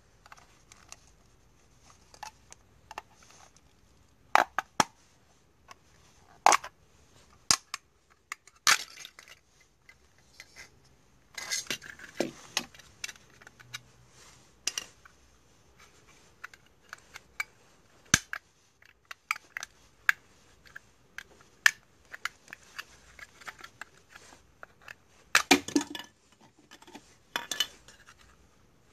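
Plastic clicks, snaps and scrapes from a smoke detector being taken apart by hand and with a screwdriver, its black optical chamber unclipped from the base. Irregular single clicks, with denser bursts of clatter about a third of the way in and again near the end.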